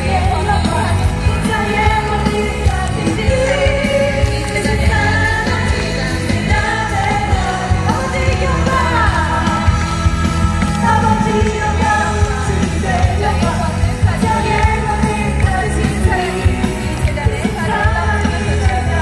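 Women singing a Korean pop-style worship song with a full band and a heavy bass beat, played loud through a large outdoor concert sound system.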